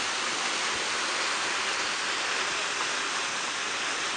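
Flowing river water giving a steady, even rushing hiss.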